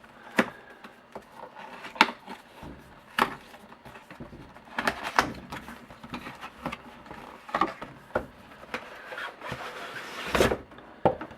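Cardboard box and packaging being handled and opened: scraping and rustling broken by sharp clicks and knocks, with the loudest, heaviest knock about ten seconds in.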